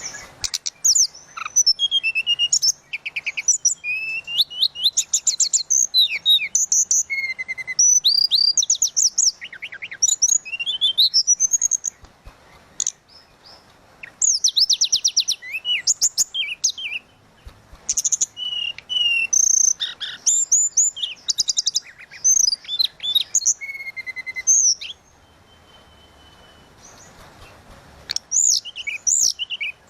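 A tledekan laut songbird singing a loud, flute-like song of whistled notes and rapid trills, one phrase after another with short gaps. It falls quiet for about three seconds near the end, then sings again.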